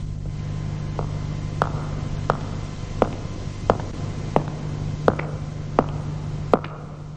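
Footsteps on a hard floor: sharp, evenly paced steps about every 0.7 seconds, over a steady low hum.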